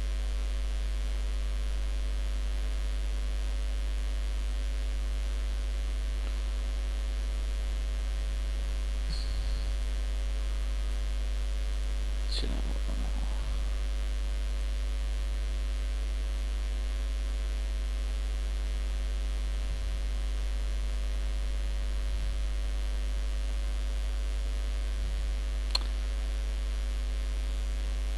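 Steady low electrical mains hum picked up by the recording setup, with a faint brief sound about twelve seconds in and a short click near the end.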